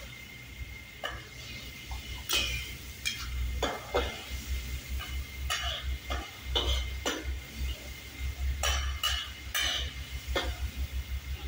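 Metal spatula stirring in a steel wok, scraping and clanking against the pan at an irregular pace, over a faint steady high tone.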